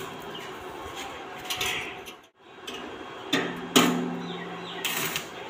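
Stick arc welding on a stainless-steel box frame: uneven crackling bursts of the arc, with sharp knocks a little past halfway, the loudest near the end of them. The sound cuts out briefly just after two seconds.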